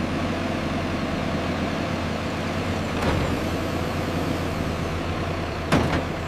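Excavator engine running steadily with a low rumbling hum, with a single sharp knock near the end.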